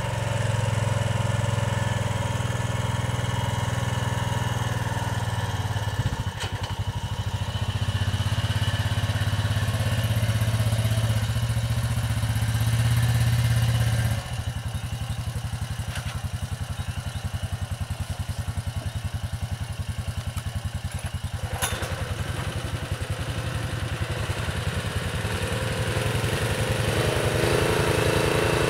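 Small engine of an ATV and trailer-mounted crane rig running steadily. About halfway through it drops abruptly to a quieter, evenly pulsing note. A couple of sharp clicks sound over it.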